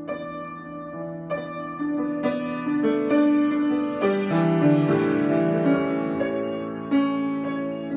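Solo piano improvising, with chords struck every half second or so and left to ring. The playing grows louder towards the middle, then eases off.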